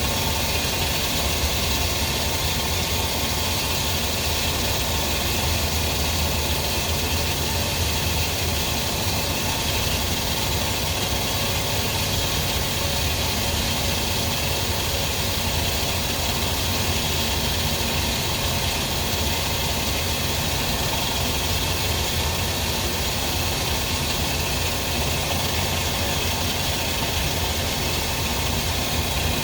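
Steady machine running noise: a constant low rumble with faint steady tones and a hiss over it, unchanging throughout.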